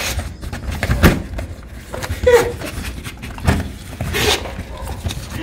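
Two Staffordshire bull terriers snuffling and licking at the holes of a door panel. Their muzzles and paws make repeated knocks against it, with a few brief pitched sounds between them.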